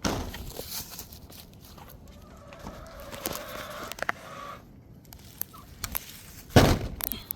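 Domestic hens clucking, with one drawn-out call in the middle. A short, loud noisy knock near the end is the loudest sound.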